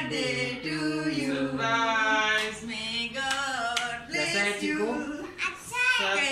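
A woman's singing voice carrying a song, with long held notes that waver and bend in pitch.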